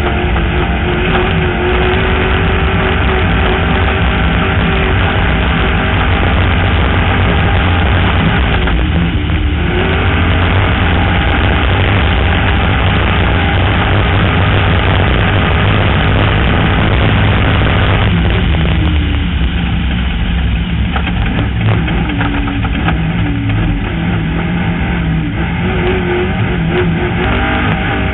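Off-road vehicle's engine running hard at speed over a dirt road, with the engine note dropping briefly about nine seconds in and again near nineteen seconds, as if easing off or shifting.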